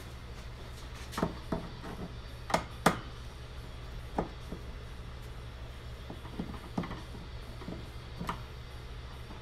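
Scattered light clicks and taps of small hard objects being handled, about a dozen in all, the loudest a quick cluster between about one and three seconds in, over a low steady hum.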